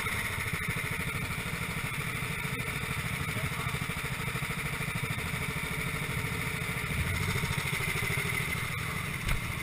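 Small single-cylinder kart engines idling and running at low revs as the karts roll slowly in line and come to a stop, a steady, rapid low pulsing.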